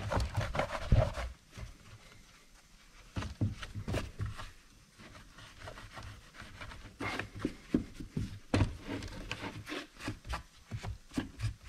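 A rag wiping down a Husqvarna chainsaw by hand: irregular rubbing strokes and small knocks, coming in spurts with quieter gaps around two and five seconds in.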